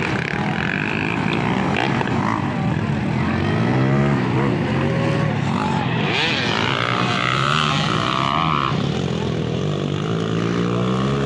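Motocross dirt bike engines revving as the bikes race over the track, the pitch rising and falling with the throttle. A higher engine whine comes in for a couple of seconds from about six seconds in.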